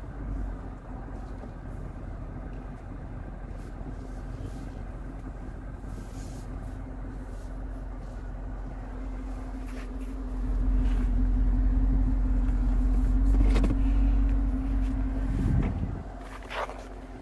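The 6.4-litre HEMI V8 of a 2014 Dodge Charger SRT8, fitted with a Corsa exhaust, idling steadily. Its low rumble grows louder about ten seconds in, and the engine winds down and shuts off about two seconds before the end, with a few light clicks.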